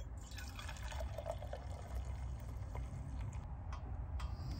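Coffee pouring in a steady stream from a stainless steel Stanley French press into an insulated tumbler, the cup filling. Near the end come a few sharp clicks as a lighter is struck at a single-burner propane camp stove.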